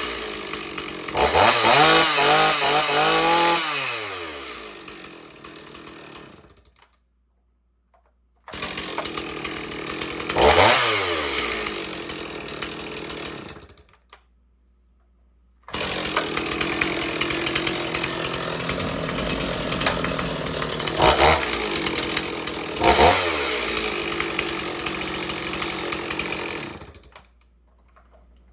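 Stihl 026 two-stroke chainsaw running and being revved several times, the pitch sweeping up and falling back to idle. The sound cuts out completely twice, and drops away again near the end.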